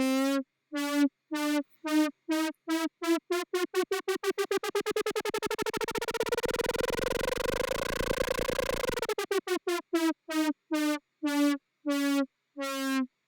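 Native Instruments Massive synthesizer patch: a held note chopped into rhythmic pulses by an LFO on the filter. The pulses speed up until they blur into a continuous buzz about halfway through, the pitch rising slightly, then slow back down to separate pulses near the end as the LFO rate is swept up and back.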